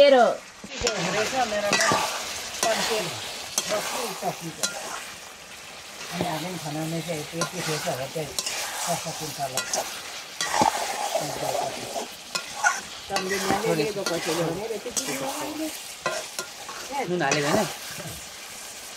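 Food sizzling as it fries in a pan and is stirred, with a utensil clicking against the pan now and then.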